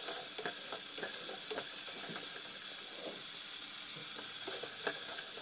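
Black chickpeas, potato and masala sizzling in a pan on medium flame while a spatula stirs them, with scattered light scrapes and clicks against the pan.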